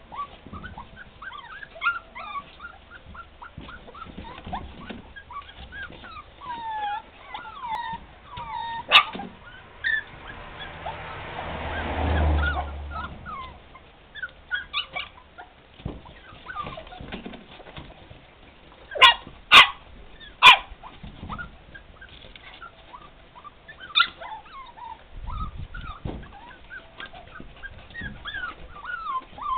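A pack of puppies whining, whimpering and yipping in a constant chorus, begging at a closed door to be let in, hungry for food they can smell. A few loud sharp yaps stand out, three of them in quick succession about two-thirds of the way in.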